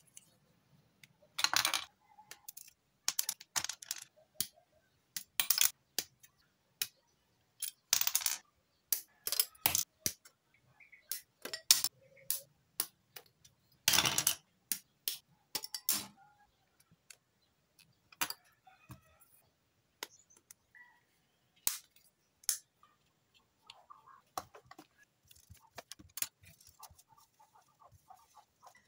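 Hard plastic model-kit parts clicking and clacking as they are handled, pressed together and set down on a tabletop: irregular sharp clicks, with a few longer, noisier rustles.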